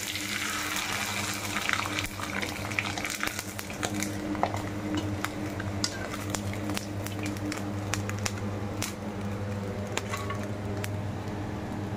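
Sabudana papad deep-frying in hot oil in a kadhai, a steady sizzle full of small crackles, over a steady low hum.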